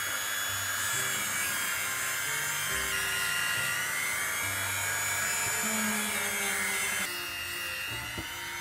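High-speed handheld rotary tool running with a high whine while its abrasive disc grinds the tip of a steel Phillips screwdriver. The whine cuts off about seven seconds in. Background music plays underneath.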